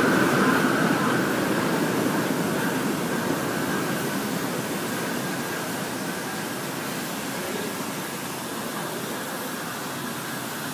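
New York City Subway A train pulling away along elevated track, its rumble fading steadily as it recedes around the curve. A thin high whine dies away within the first few seconds.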